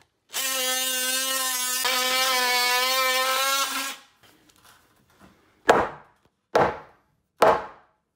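A cordless power tool runs with a steady high whine for about three and a half seconds as it cuts off roofing nails sticking out through the roof decking. Then three sharp knocks on wood come just under a second apart.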